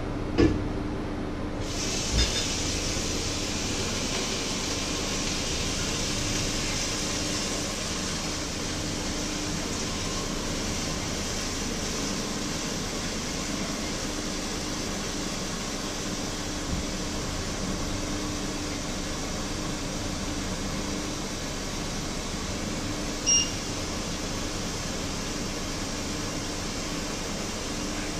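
Kitchen tap running steadily into the sink, with a couple of knocks near the start and a single short high ping later on.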